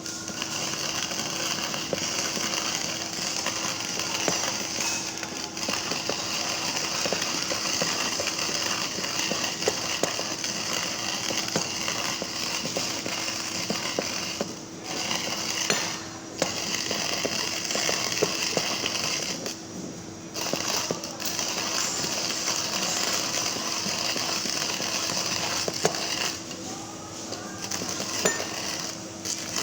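Hario hand coffee grinder with ceramic burrs crushing beans as the handle is cranked: a dense, crackling crunch of many small clicks, broken by a few short pauses.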